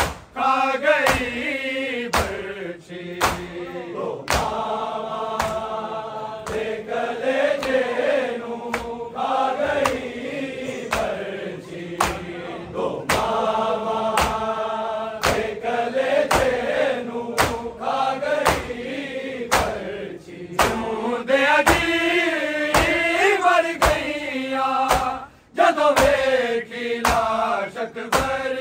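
Male voices chanting a Punjabi noha in unison, with long held notes, over a steady beat of sharp strikes.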